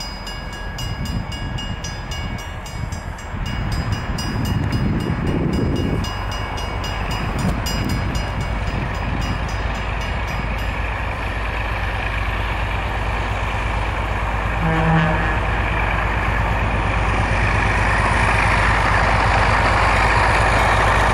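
ALCO RS-32 diesel locomotive with its V12 ALCO 251 engine running as it hauls a freight train past, with regular clicking from the wheels over the rails. About two-thirds of the way through there is a short horn blast, and the engine and train noise grow louder as it approaches.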